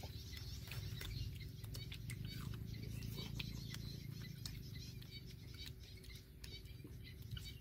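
Chewing and lip-smacking with scattered small clicks of a fork on food, over a low steady rumble.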